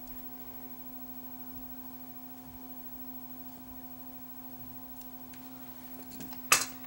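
Steady low electrical hum, with one sharp click near the end and a smaller one just after.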